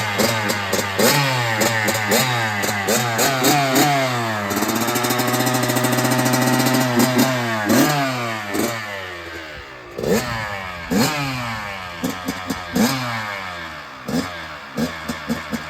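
2022 Kawasaki KX112's two-stroke single-cylinder engine being ridden hard, its pitch repeatedly climbing and dropping as it revs and shifts, held at a steady pitch for a couple of seconds near the middle.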